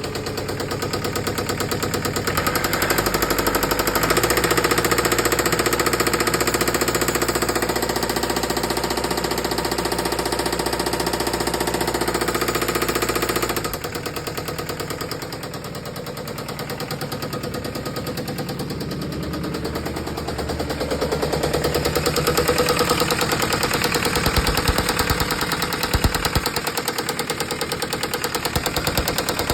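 Isuzu 4JB1 four-cylinder diesel engine running with a rapid, rhythmic knocking clatter. It gets louder about three seconds in, drops back abruptly about halfway through, then builds up again later, with a few heavier low thumps near the end.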